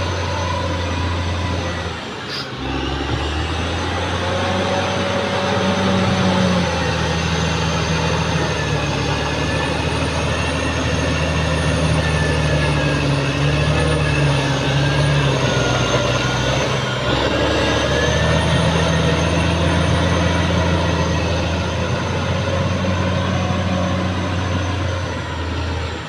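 Caterpillar D6R XL bulldozer's diesel engine running steadily under load, its pitch shifting as it works, with a thin whine above the engine note. It dips briefly twice.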